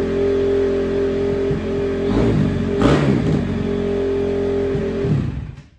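Freshly rebuilt 2009 Honda CRF250R's single-cylinder four-stroke engine running steadily, blipped a couple of times about two to three and a half seconds in, then cutting off abruptly near the end.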